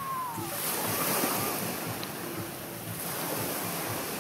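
Wind buffeting the microphone over a steady wash of surf.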